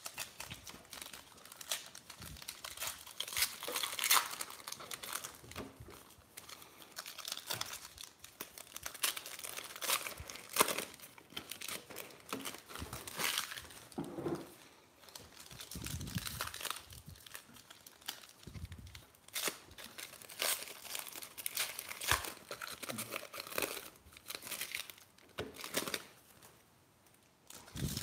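Foil wrappers of 2018 Diamond Kings baseball card packs being torn open and crinkled by hand, in irregular bursts of crackling with short lulls between.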